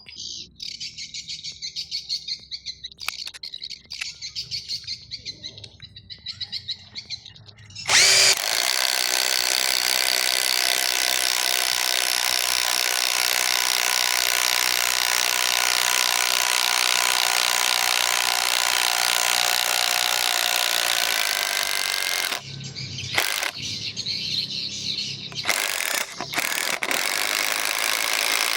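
Dagmara DTD173 cordless impact driver running, first lightly with a fluttering high whine. About eight seconds in, its hammer mechanism starts impacting hard and steadily under load. Near the end the hammering stops and starts in short bursts.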